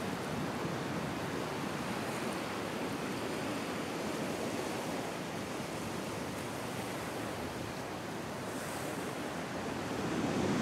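Ocean surf washing onto a sandy beach, a steady rushing noise.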